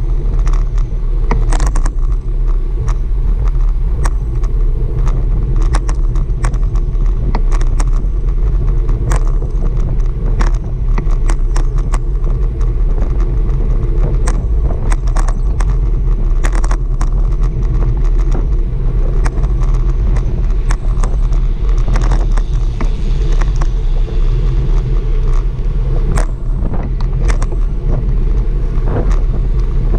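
Steady wind and road rumble on a camera riding on a moving bicycle, with many irregular clicks and knocks over it.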